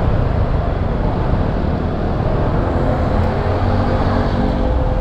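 Motorcycle engine running and wind rushing past while riding, picked up by a bike-mounted action camera; the engine note settles a little lower in the second half as the bike slows onto gravel.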